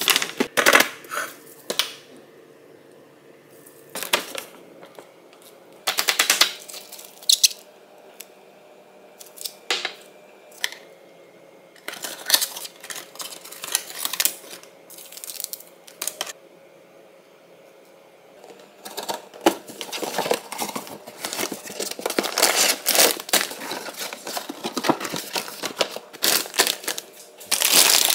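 Food packaging being handled: a cardboard box opened and plastic packets rustling and crinkling, in short bursts with sharp clicks and quiet gaps between. Near the end frozen corn kernels rattle out of a plastic bag into a stainless steel bowl.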